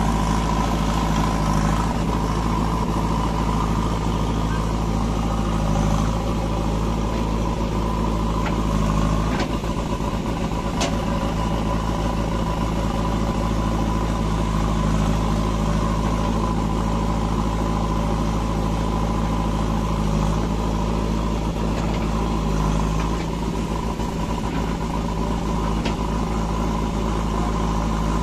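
JCB 3DX backhoe loader's diesel engine running steadily while it loads soil into a tractor trailer, with a few brief knocks near the middle.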